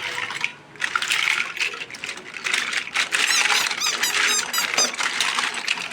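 Plastic toy animal figures clattering and rubbing against each other as they are rummaged through, with a quick run of high squeaks near the middle.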